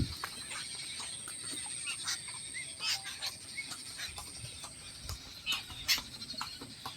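Wild birds calling in short, sharp chirps and clicks, with a thin steady high whine that fades about five seconds in.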